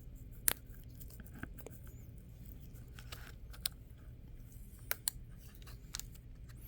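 Fingers picking at and peeling the protective plastic film off a video doorbell: scattered small clicks and crinkles, with a few sharper ticks about half a second in and around five seconds in.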